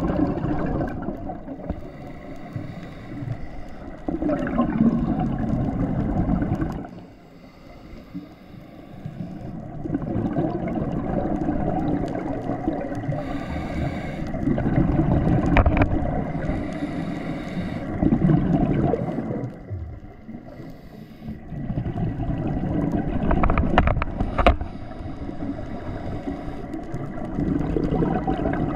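Scuba diver's exhaled bubbles gurgling and rumbling from the regulator, heard underwater, in long bursts broken twice by short quieter pauses for breath, with a few sharp clicks.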